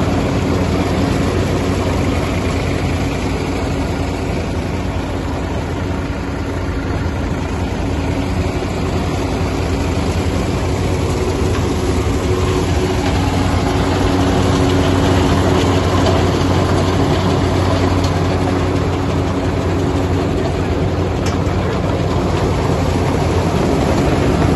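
A vibrating groundnut-cleaning machine running steadily, its shaking screens rattling as groundnut pods pour through, over the steady running of a tractor engine.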